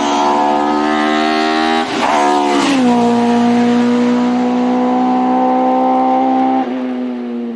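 Racing car engine at full throttle, its note climbing, with a short break about two seconds in, then falling sharply as the car passes close by. It holds a steady high note as it pulls away and drops and fades near the end.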